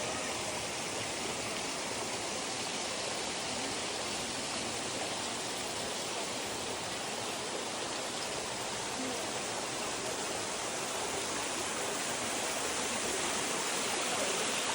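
Waterfall: a steady rush of falling, splashing water that gets slightly louder near the end.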